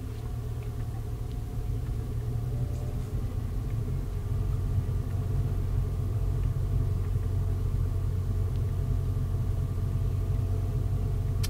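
Vehicle heard from inside the cab while driving: steady engine and road rumble with a faint steady whine above it, slowly growing louder.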